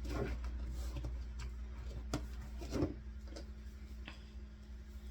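A tied bag of glass beads being squeezed and fed into a doll's body, with rubbing and rustling of the bag and fabric, beads shifting, and scattered soft clicks; one louder knock comes about three seconds in.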